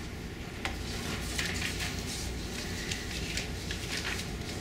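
Room tone: a steady low hum with a few faint rustles and clicks.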